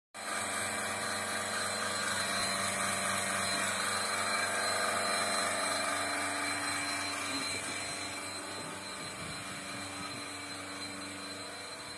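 Single-bucket milking machine's vacuum pump unit running steadily, a continuous mechanical hum with a steady high whine. It starts abruptly and grows gradually fainter in the second half.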